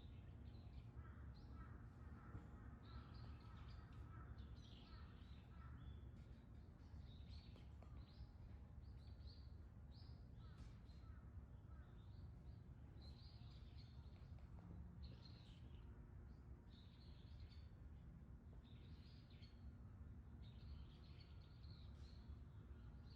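Faint outdoor ambience: many short, high bird chirps repeating throughout, over a steady low background rumble.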